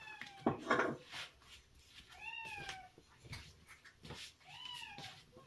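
A cat meowing: the end of one falling meow, then two more meows about two seconds apart, each rising then falling in pitch. A noisy knock or rustle comes about half a second in, with a few faint clicks in between.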